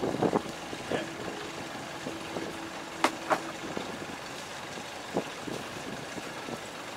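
Scattered knocks and thuds of crew climbing and moving about a sailboat's deck while it is being tied up, the sharpest about three seconds in, over a faint steady hum that stops about four seconds in.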